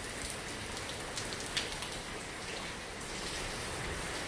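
Steady rain falling, with a few louder drops ticking now and then.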